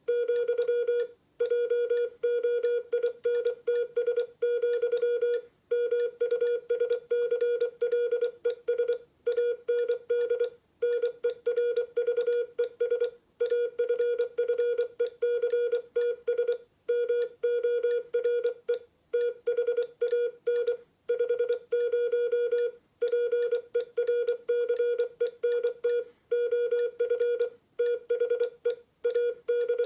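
Morse code sidetone: a steady tone of about 500 Hz keyed on and off in fast dots and dashes, with short breaks between words, as plain-language text is sent on a hand-made paddle through an electronic keyer.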